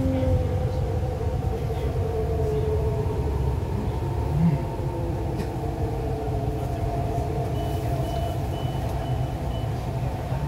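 MTR East Rail line R-Train electric multiple unit heard from inside the carriage: a steady rumble of wheels on track under the whine of the traction motors, which slowly shifts in pitch as the train slows toward a station. Near the end, a run of about five short high beeps.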